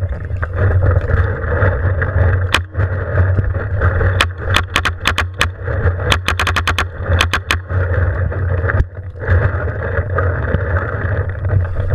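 Paintball marker firing: a single shot, then quick strings of sharp pops over the next few seconds. A steady low rumble runs underneath.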